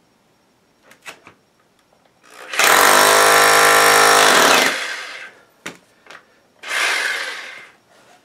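Bosch RH432VCQ SDS-plus rotary hammer drill in rotary-hammer mode, punching a 1/4-inch pilot hole into a concrete floor. It runs in one loud, steady burst of about two seconds that then tails off, and a shorter, quieter burst near the end, with a few knocks in between.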